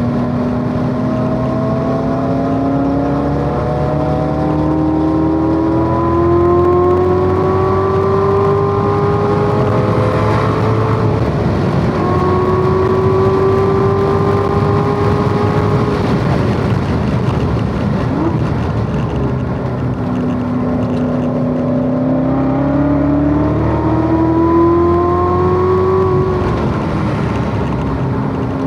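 Corvette Z06's V8 engine at speed on a track lap, its note climbing slowly under acceleration, holding around the middle, easing off, then climbing again near the end. Steady wind and road noise under the engine throughout.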